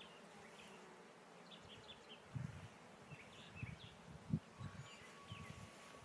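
Honeybees buzzing faintly around an opened hive, with a few irregular low thuds, the loudest about four seconds in.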